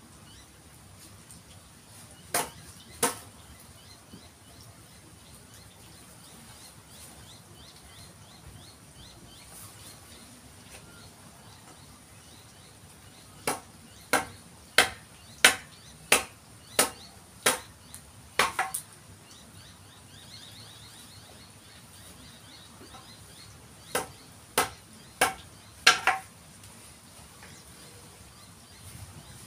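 A mallet driving a chisel into a eucalyptus forest red gum didgeridoo, giving sharp knocks on the wood. The knocks come in three bouts: two near the start, a run of about eight at roughly one every 0.7 seconds in the middle, and four or five near the end.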